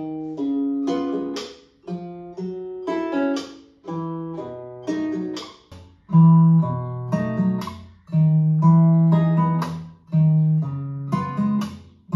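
Plucked-guitar music with a beat, played first through a TV's built-in speakers and then, about six seconds in, through a Majority Sierra 2.0.2 soundbar, where it is louder with much fuller bass. The notes come in phrases of about two seconds, each dying away.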